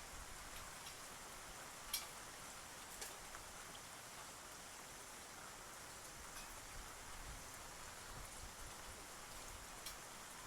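Eurasian tree sparrows pecking at food, heard as a few faint, sharp beak taps: two in the first few seconds, one midway and one near the end, over a steady soft hiss.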